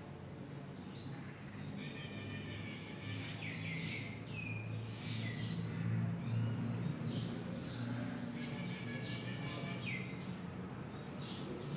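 Birds chirping: many short, falling calls repeated over a low steady hum.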